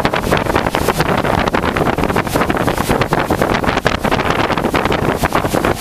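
Heavy thunderstorm rain pouring down, a loud, dense, steady patter of drops, with wind buffeting the microphone.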